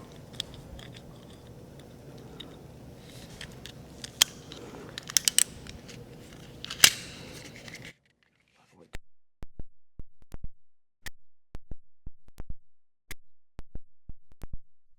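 An IDC crimp gun being worked to re-crimp wires into an IDC connector. It gives scattered sharp clicks and snaps of the tool and the plastic connector, with one louder snap near the middle. In the second half the room noise drops out and only short, isolated clicks are heard.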